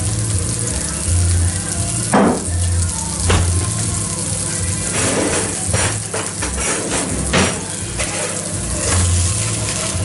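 Beef burger patty frying on maximum heat in a pan, sizzling steadily, with a few sharp knocks and scrapes of a utensil against the pan.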